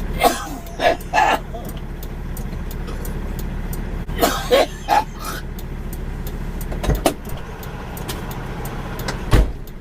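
A person coughing in two short fits of about three coughs each, one at the start and one about four seconds in, over a steady low rumble. Two brief dull thuds come later.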